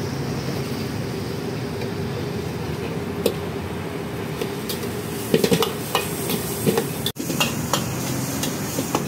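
A metal ladle scraping and knocking against a steel wok as minced meat with dried chilies is stir-fried, the strokes coming about three seconds in and more often in the second half. A steady hum runs underneath.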